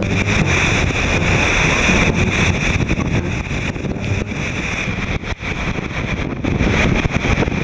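Strong wind buffeting the microphone over rushing water and waves aboard an ocean racing sailboat in heavy weather.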